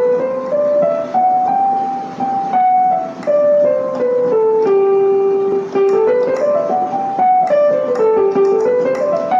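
Portable electronic keyboard playing the G major scale one note at a time, up an octave and back down, twice, starting up again near the end.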